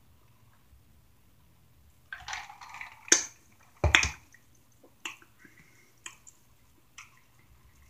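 Close-miked eating sounds: after a quiet couple of seconds, a short rustle and two sharp knocks as a drink tumbler is put down on the table, then scattered small wet clicks and smacks of chewing and handling sauce-covered chicken wings.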